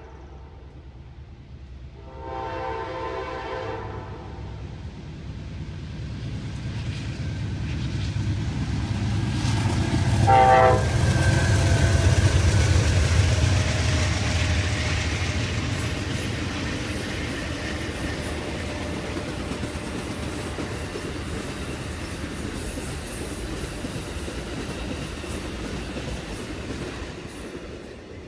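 Amtrak Coast Starlight passenger train passing at speed. Its lead locomotive sounds a chord horn in a long blast about two seconds in and a short blast about ten seconds in. The rumble of the locomotives and Superliner bilevel cars builds to its loudest just after the second blast, then holds as steady wheel clatter while the cars go by, fading near the end.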